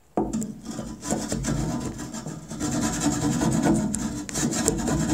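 A metal tool scraping rust-like grime from inside a 1985 Toyota MR2's steel fuel tank, a continuous rasping scrape. The grime, loosened by a soak in vinegar and Evaporust, scrapes right off to fairly good metal.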